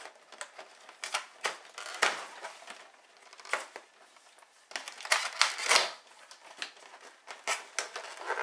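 Toy packaging box being torn open and crushed by hand: irregular bursts of tearing and crackling, loudest about five seconds in.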